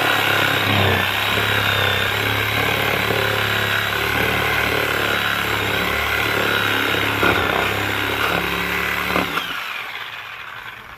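Electric bee vacuum running steadily with a high whine as it sucks up bees, then switched off about nine seconds in and winding down.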